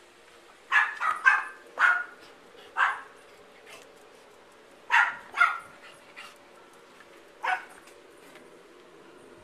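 Yorkshire terrier barking: about eight short barks, a quick run of five in the first three seconds, then two about five seconds in and one more near the end.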